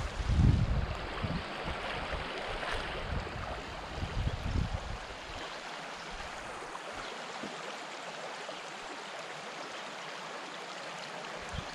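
Shallow river water rippling over a gravel riffle, a steady rushing. There are a few low thumps and bumps in the first five seconds, the loudest right at the start.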